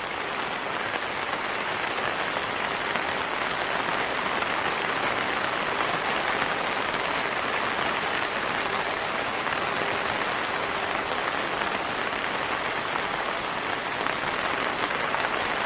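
Heavy rain pouring down steadily, a dense even hiss of drops striking surfaces.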